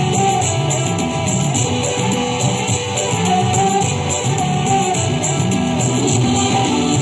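Music playing throughout.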